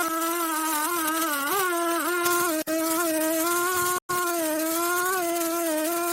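Small electric power tool motor running with a steady buzzing whine, its pitch dipping briefly now and then as if under load. It cuts out for an instant twice, about two and a half and four seconds in.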